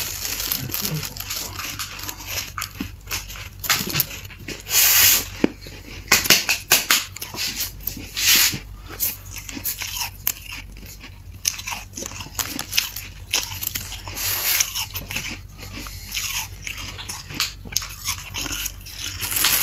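Freezer frost being bitten and chewed: dense, irregular crisp crunching, with a louder crunch about five seconds in and another at about eight and a half seconds.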